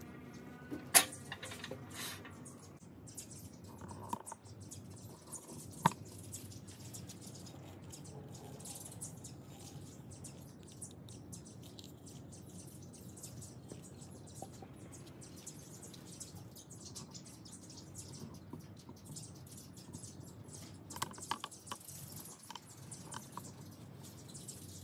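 Sharp clicks and knocks from a freshly turned wooden vase being handled at a wood lathe, taken off the chuck and set down on a wooden board. The two loudest knocks come about a second in and just before six seconds, with a quick run of lighter clicks around twenty-one to twenty-three seconds, over a faint steady background.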